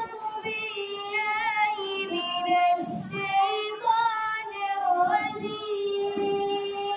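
A girl's voice reciting the Quran in the melodic qirat style into a microphone, holding long notes and winding through rising and falling ornamented turns without a break.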